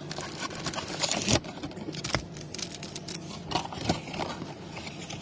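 Cardboard boxes and card packs being handled: irregular rustling and scraping with sharp taps and clicks, and a louder rustle about a second in.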